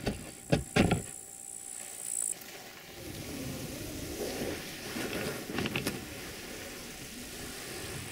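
Three sharp knocks within the first second as the seat board of an inflatable PVC boat is pushed down into its brackets. From about three seconds in, a steady rustling swish of the inflatable boat being dragged through tall dry grass, with a few light clicks.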